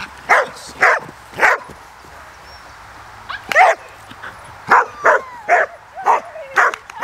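Border Collie barking, short sharp barks: three in quick succession, a pause of about two seconds, then six more, faster toward the end.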